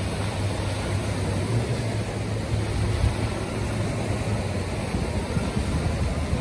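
Wind buffeting the microphone over the rush of surf, with the steady low hum of a boat's outboard engine driving out through the breakers.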